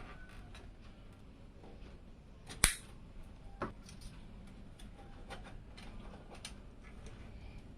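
Sharp click of PC parts being fitted, with a smaller click about a second later, among faint ticks and handling noises.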